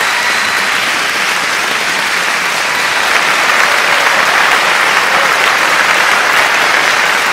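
Crowd applause: dense, steady clapping with no breaks.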